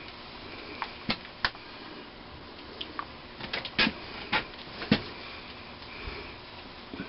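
Irregular sharp metallic clicks and knocks, about a dozen, the densest cluster a little past halfway. They come from metal parts and fittings being handled on a stationary engine during greasing.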